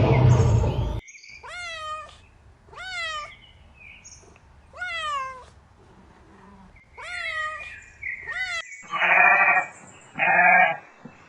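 A big cat's roar ends about a second in. A domestic cat then meows about five times, each meow rising and then falling in pitch. Near the end, sheep bleat twice, louder and harsher.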